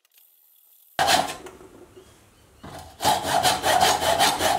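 80-grit sandpaper rubbed by hand back and forth over an oak hammer handle, a rasping scrape. It starts about a second in with a stroke that fades, then runs as quick continuous strokes from about three seconds in.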